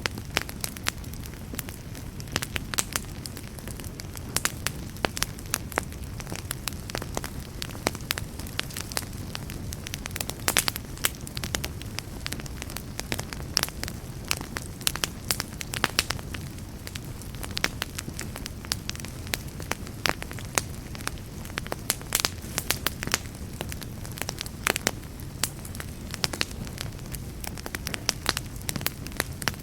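Wood campfire burning, with a steady low rumble and many sharp, irregular crackles and pops.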